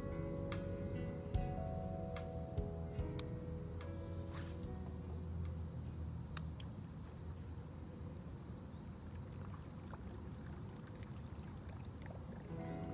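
Insect chorus with a steady, unbroken high trill. Soft background music plays over the first few seconds and fades, and a few sharp clicks are heard.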